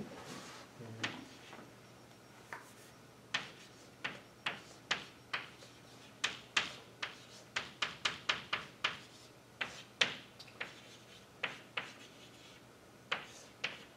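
Chalk writing on a blackboard: a run of short, sharp taps and brief scratches as the strokes are made, irregular and bunched in the middle, over a faint steady low hum.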